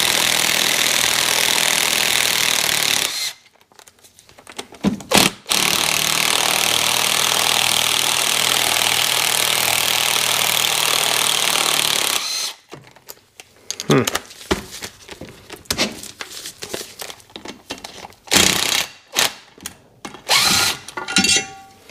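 Cordless drill with a socket running steadily for about three seconds and then, after a short blip, for about seven more, backing bolts out of an engine bracket. After that come light clicks and clatter of metal parts being handled.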